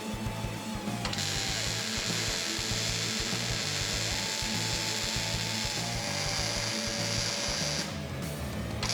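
A power tool running steadily for about seven seconds, starting about a second in and stopping shortly before the end, over background music with a steady beat.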